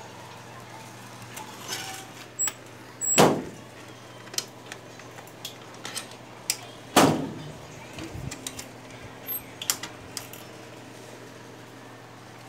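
Clicks and rattles of metal hardware being worked loose on a screen door while taking off its old pneumatic closer, with two loud knocks about three and seven seconds in.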